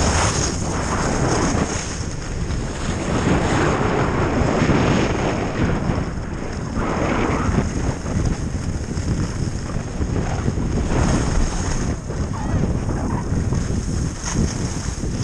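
Wind buffeting the microphone of a skier's action camera on a fast downhill run, with the skis hissing and scraping over packed, groomed snow; the rush swells and eases with the turns.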